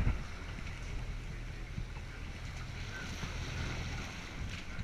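A fishing boat's engine running with a low, steady hum, under wind and the wash of choppy sea.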